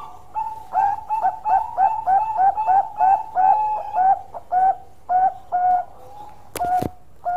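Zebra dove (Bangkok-bred perkutut) singing its long song: a rapid run of about fifteen short coos, each dipping quickly in pitch, packed closely at first and spacing out toward the end. A brief sharp noise cuts in shortly before the end.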